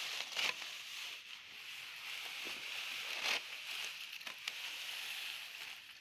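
Dry, ripe rice straw rustling and crackling as it is handled, with a few sharper crackles over a steady high hiss.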